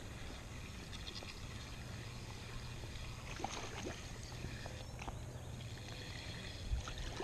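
Lake water lapping and sloshing around a wading angler, low and steady, with a few faint clicks.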